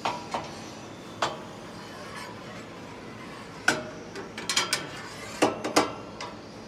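Scattered sharp metallic clinks and knocks from metal machine parts being handled: one near the start, one about a second in, then a quick cluster of clinks between about three and a half and six seconds in, over a steady background hum.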